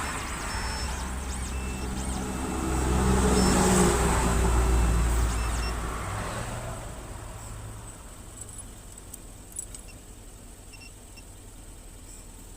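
Motors of an Xhorse Dolphin XP-005 automatic key cutting machine whirring as it moves, swelling to its loudest in the middle and dying away after about seven seconds, followed by a few light clicks.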